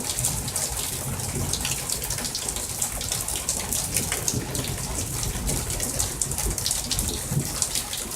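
Heavy rain pouring down steadily in a thunderstorm, with many sharp drop hits close by.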